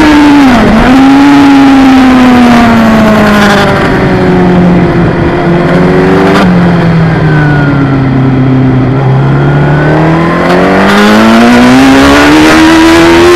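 Suzuki GSX-R1000 inline-four superbike engine at racing speed, heard from a camera mounted on the bike with wind rush. The engine note falls steadily as the bike slows through a corner, then rises steadily as it accelerates out. A sharp click comes about halfway through.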